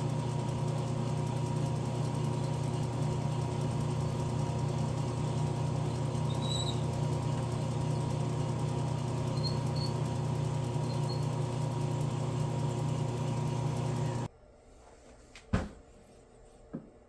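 Metal-working machine motor running steadily with a constant hum, stopping abruptly about 14 seconds in; a sharp click and then a lighter knock follow.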